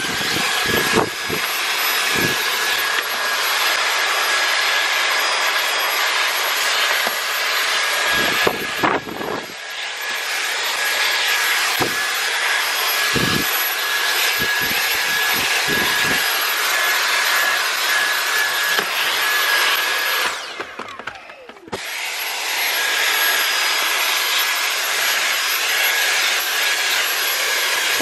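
Dyson V8 Absolute cordless stick vacuum running on its maximum setting with a crevice nozzle: a steady rush of air under a high motor whine. A few low knocks come through, and the sound drops away briefly about two-thirds of the way in.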